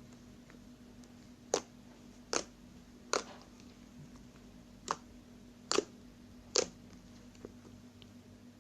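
Slime being pressed and squished, making sharp clicking pops about six times at irregular intervals, roughly a second apart.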